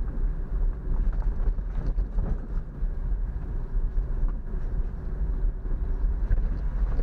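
Steady, low engine and road rumble of a moving vehicle, heard from on board.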